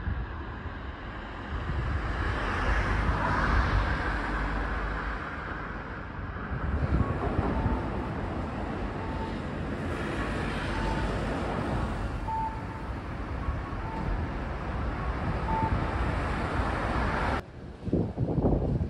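Street ambience: a steady rush of passing road traffic with a low rumble and wind buffeting the microphone. Faint short beeps repeat about every second and a half through the middle.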